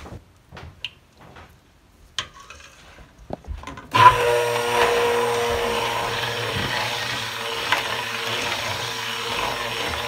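A few light knocks, then an immersion (stick) blender switches on about four seconds in and runs steadily in a stainless steel pot, blending coffee soap batter, which thickens right away.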